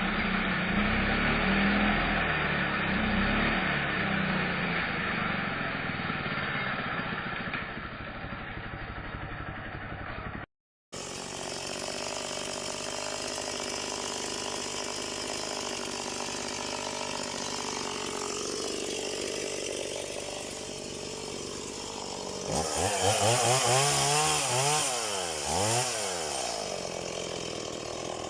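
Stihl two-stroke chainsaw running: after a cut in the recording it runs at a steady pitch, then near the end it is revved up and down a few times.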